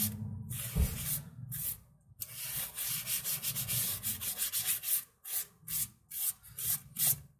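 Headlight-restoration paste being rubbed by hand over a Daewoo Lanos's plastic headlight lens: back-and-forth rubbing strokes, several a second, with a short pause about two seconds in.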